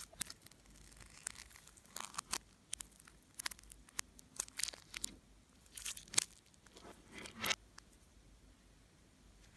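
Slime being squished and stretched by hand, making irregular sticky crackles and sharp clicking pops, with a few longer crackling stretches.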